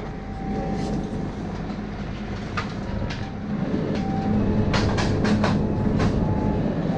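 Convenience-store room noise: a steady low hum, a few faint short tones, and a brief run of clicks and clinks about five seconds in.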